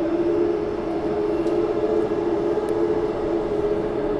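Bombardier B-series electric multiple unit running, heard from inside the carriage: a steady electric whine of constant pitch from its traction drive over the rumble of wheels on rail.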